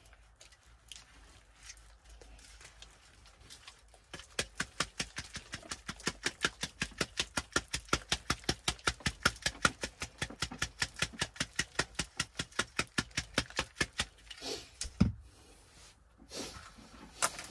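Garden sieve shaken in quick, even strokes, about four or five a second, as dry compost is sifted through its mesh onto a seed tray; the shaking starts about four seconds in and stops about ten seconds later. A single low knock follows, as the sieve is set down.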